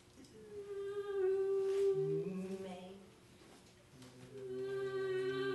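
Voices holding long, steady hummed notes in a sound-poetry reading: a high note first, with a lower voice coming in about two seconds in and stepping up in pitch. After a short pause near the middle, held notes at several pitches start again about four seconds in.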